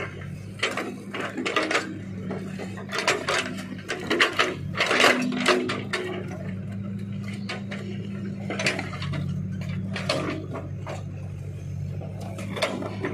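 Backhoe loader's diesel engine running steadily while its steel bucket digs into a pile of rock and soil, with repeated clattering and scraping of stones against the bucket, loudest about four to five seconds in.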